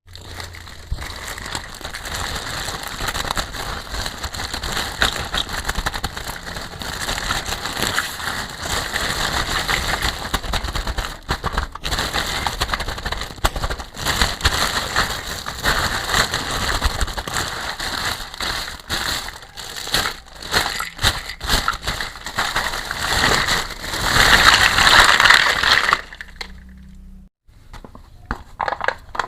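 Toy packaging being crinkled and torn open by hand: dense crackling and rustling with many small clicks. About 26 seconds in it drops sharply to softer, scattered handling sounds.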